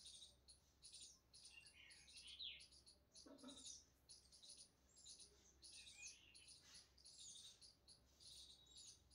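Faint chirping of small birds: many rapid high chirps with short gliding whistles, heard throughout.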